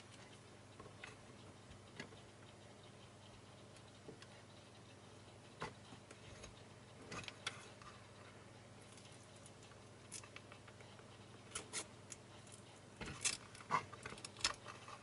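Small plastic clicks and ticks from fingers handling and prising at the plastic holder of a CR2032 coin-cell backup battery on a mini PC's motherboard, scattered at first and coming faster and sharper near the end.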